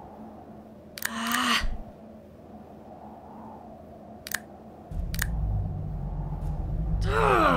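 Animated sci-fi film sound effects: a short pitched sound with gliding tones about a second in, two sharp clicks, then a low steady rumble that starts about five seconds in, with another quickly gliding pitched sound near the end.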